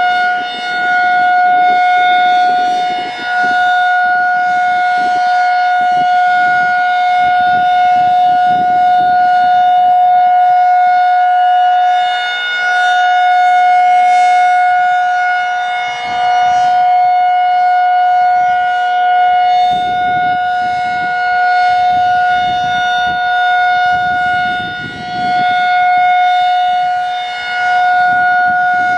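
Federal Signal 2001-SRN rotating electromechanical outdoor warning siren sounding its full alert, one steady unwavering tone. The sound swells and fades every few seconds as the rotating horn sweeps past.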